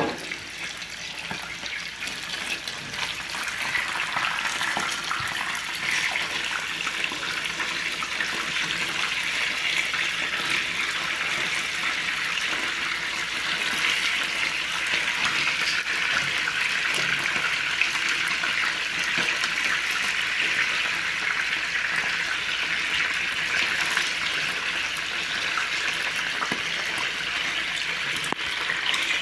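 Chicken frying in hot oil in a pan, a steady crackling sizzle that builds over the first few seconds and then holds.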